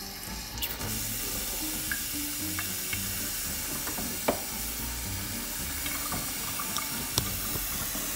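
Water running from a Moen Torrance single-handle kitchen faucet into the sink, turned on a little under a second in and flowing steadily, with a few small clicks. The tap is run to check that the newly fitted cartridge no longer leaks.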